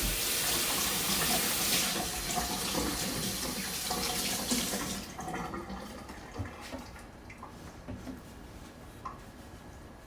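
Kitchen sink tap running full for about five seconds, then turned off, followed by a few faint knocks and clinks.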